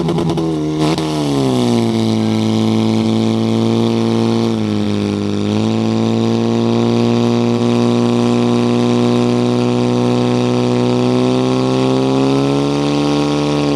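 Portable fire pump's engine running flat out at high revs, pushing water through the attack hoses to the nozzles. Its steady note dips briefly about five seconds in and climbs a little near the end.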